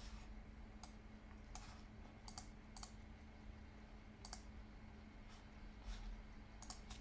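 Faint, scattered clicks of a computer keyboard and mouse, about eight spread unevenly over several seconds, over a faint low steady hum.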